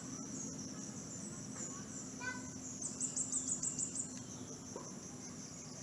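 Insects chirring steadily at a high pitch, with a quick run of about eight louder chirps a few seconds in and a few faint short chirps lower down.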